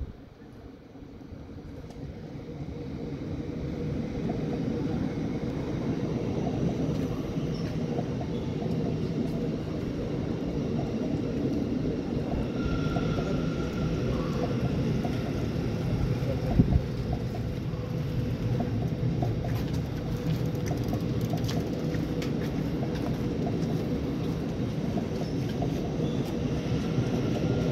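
A multi-car passenger train running past on the tracks below. The rumble builds over the first few seconds as it comes close, then holds steady with a faint hum, and there is a single knock about 16 seconds in.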